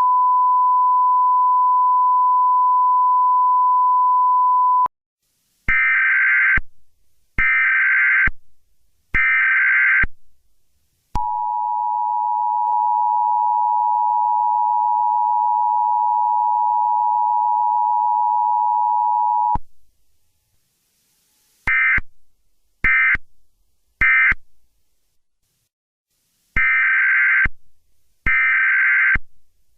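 Emergency Alert System broadcast tones. A steady single tone sounds for about five seconds, then three one-second bursts of screeching digital header data. The two-tone EAS attention signal follows and holds for about eight seconds. Three short end-of-message data bursts come next, and near the end another set of three header bursts starts.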